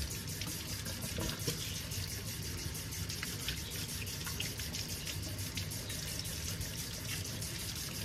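Kitchen faucet running steadily, its stream splashing over hands as raw shrimp are rinsed under it.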